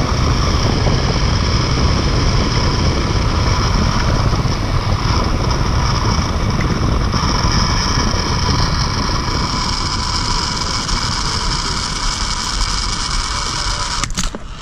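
Zipline trolley wheels running along the steel cable with a steady high whine, over heavy wind buffeting on the microphone. The whine eases in the last few seconds, and a sharp knock comes near the end as the rider reaches the landing platform.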